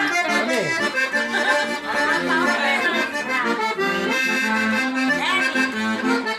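Accordion (sanfona) playing a lively tune: a melody over a steady pulse of bass notes and chords.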